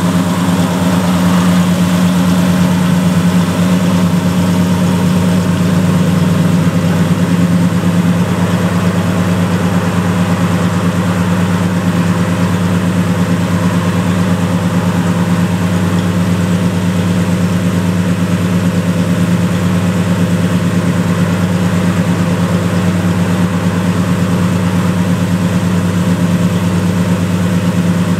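A 1970 Dodge D100 pickup's 318 cubic-inch V8 idling steadily.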